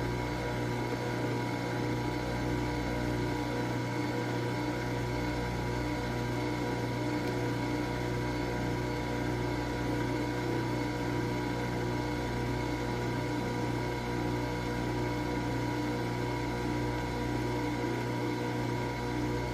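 Nespresso Vertuo Pop+ coffee machine running as it brews, a steady mechanical hum from its pump and spinning capsule with a few constant tones over it.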